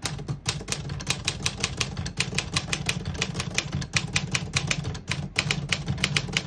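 1950 Smith-Corona Silent portable typewriter being typed on at a quick, steady pace, about six to eight key strikes a second, each a sharp click, somewhat muffled compared with a non-silent model.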